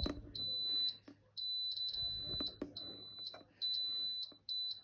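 Instant Vortex air fryer's control panel beeping as its dial is turned to raise the cook time. The high beep comes in several runs, some lasting about a second, with faint clicks from the dial between them.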